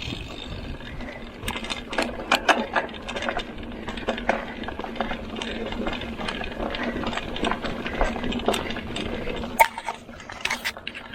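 Mountain bike on rough ground: the freehub's ratchet buzzes steadily under many irregular clicks and rattles from the bike, with one sharp knock near the end.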